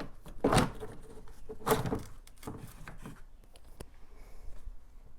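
Hard plastic cowl panel under the wipers being pulled and flexed by hand: two loud scraping rasps, then a few light clicks and taps.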